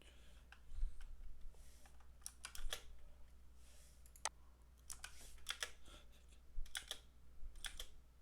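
Irregular clicks and taps of a computer keyboard and mouse, some in quick pairs, with gaps of a second or more between them.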